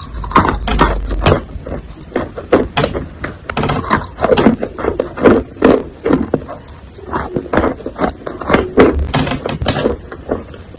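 Wet chalk being bitten and chewed: a bite at the start, then many irregular wet crunches as it is chewed.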